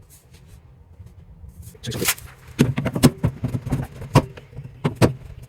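A short scraping rush about two seconds in, then a run of sharp, irregular knocks and clunks from handling a dishwasher and its fittings during installation.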